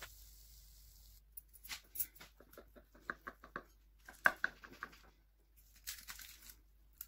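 Knife cutting through a crisp, cheese-topped flatbread sandwich on aluminium foil: a run of quiet crunches and scrapes, with quick rapid scratching about three seconds in and again just after four.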